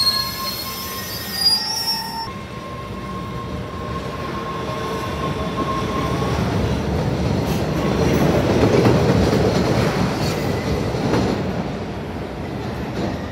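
MBTA Red Line subway trains in an underground station. At first a moving train's wheels squeal in several steady high tones, for about two seconds. Then a train rumbles past, loudest about nine seconds in and fading near the end.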